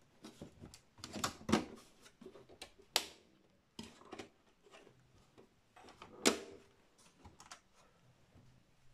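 Scattered clicks and knocks of metal and plastic parts being handled and fitted inside a Dell Optiplex 790 desktop computer case, the sharpest click about six seconds in.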